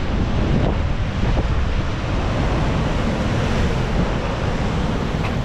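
Choppy sea surging and washing against the rocks, with wind buffeting the microphone: a steady rushing noise with a heavy low rumble.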